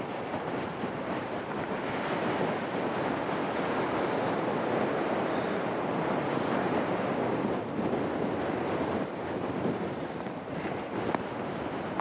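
Wind buffeting the microphone on an exposed slope: a steady rushing noise with no tones, swelling a little for several seconds in the middle, with one faint click near the end.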